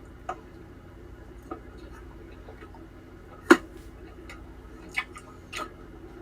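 A handful of short, irregular clicks over a steady low hum. The loudest click comes about halfway through.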